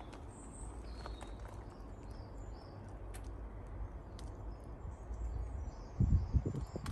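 Quiet garden ambience with small birds chirping in the background over a low steady rumble, a few faint clicks, and a short cluster of low thumps about six seconds in.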